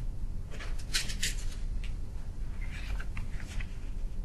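Room tone with a steady low hum and a few small clicks and rustles, grouped about a second in and again around three seconds in.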